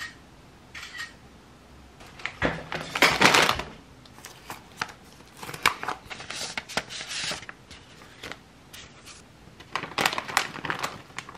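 Crinkling and rustling of plastic snack wrappers and a paper envelope being handled, with a letter pulled out and laid on a desk. It comes in several bursts, loudest around three seconds in.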